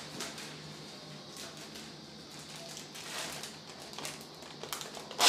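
Operating-room background: a steady low hum with faint rustling and handling noises, and a sharp click at the very end.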